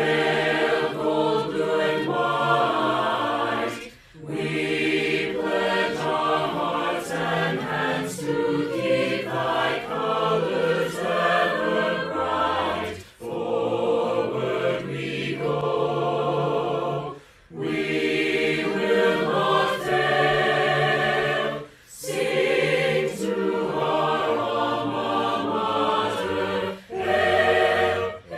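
Mixed-voice virtual choir singing in long held phrases, with short breaks for breath every few seconds.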